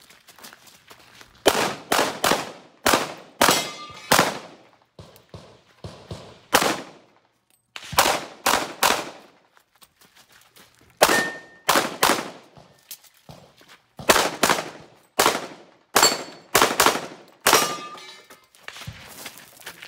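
Pistol fired in a USPSA Limited-division stage: rapid shots in quick pairs and short runs of three to five, separated by pauses of about a second, some shots fainter than others.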